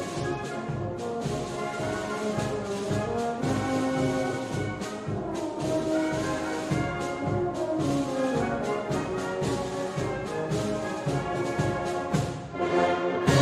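Brass band music playing, with several brass instruments sounding together in held and moving notes; it dips briefly near the end and then comes back louder.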